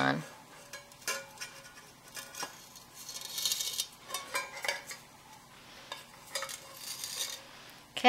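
Handling of an empty tin tuna can while string is threaded through holes punched in its side: scattered small clicks and taps of the metal, with a brief rasp about three seconds in.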